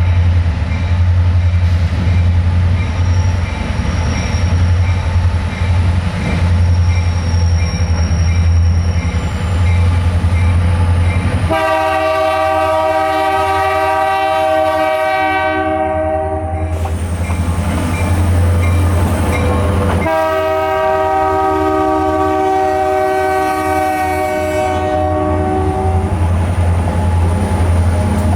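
Diesel freight locomotive passing close by, its engine rumbling low and steady, then sounding its multi-chime air horn in two long blasts, the first about eleven seconds in and the second about twenty seconds in, each a chord of several tones lasting about five seconds.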